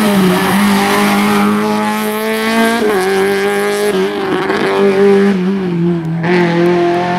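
A Peugeot 106 rally car's engine revving hard through a hairpin, its pitch climbing and then dropping sharply a few times as the car passes and pulls away.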